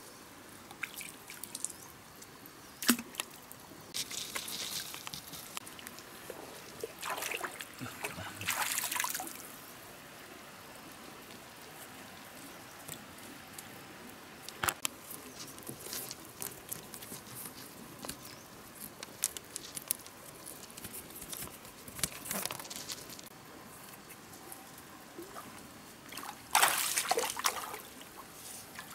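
Shallow stream water sloshing and splashing around a wading person's legs and hands as he moves and works in it, in irregular bursts over a steady trickle, with a few sharp knocks in between.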